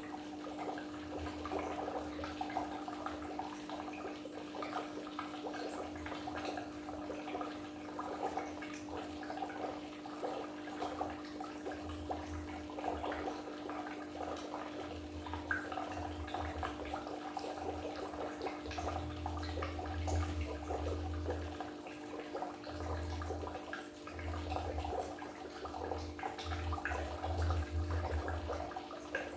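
Goldfish aquarium water bubbling and gurgling steadily, with a constant low hum underneath and irregular deeper gurgles.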